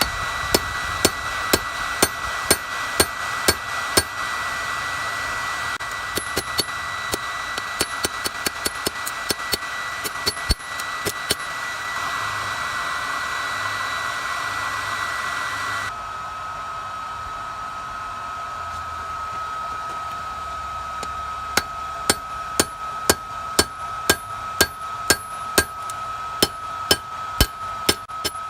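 Hand hammer striking hot steel on an anvil in runs of sharp blows, about two a second, with a long pause in the middle. Under it a forge blower runs with a steady whine and hiss; about halfway through the hiss drops and the whine settles lower.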